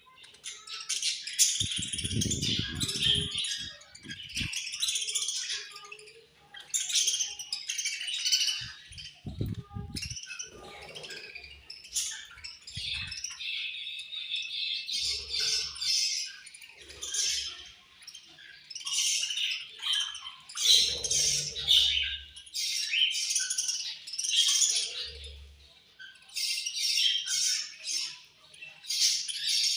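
A group of budgerigars chirping and chattering continuously, many overlapping calls. Short bursts of lower rattling or rustling come about two to four seconds in and again near ten seconds.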